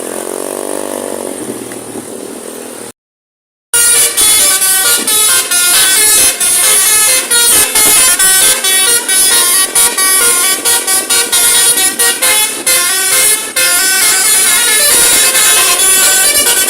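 Telolet horn, a set of multi-tone musical air horns, playing a loud, fast melody of short notes that change pitch quickly. It starts after a brief break, and is preceded by a quieter tone that rises and falls in pitch for about three seconds.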